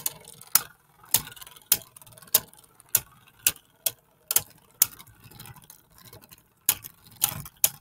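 Two Beyblade spinning tops, one with 3D-printed parts, battling in a plastic stadium: sharp clacks as they strike each other and the stadium wall, roughly one to two a second, over a faint rattle of spinning.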